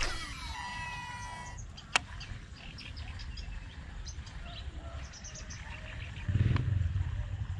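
Fishing reel spool whirring as line pays out on a cast, lasting about a second and a half, followed by a sharp click about two seconds in. Small birds chirp through the middle, and a low rumble, the loudest sound, starts near the end.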